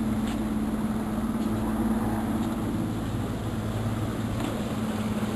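Engine running steadily at constant speed: an even, low drone with a steady hum.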